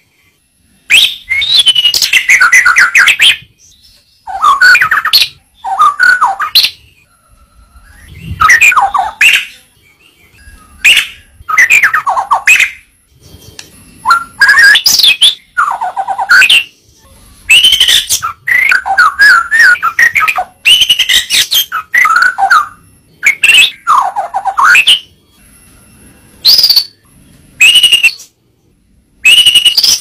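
White-rumped shama (murai batu) singing a long string of loud, varied phrases of whistles, trills and rapid chatter, each a second or two long with short pauses between them.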